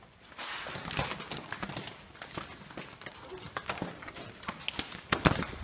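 Footsteps over a debris-strewn floor and the rustle and crackle of hanging plastic sheeting being pushed aside, with a few sharp knocks about five seconds in.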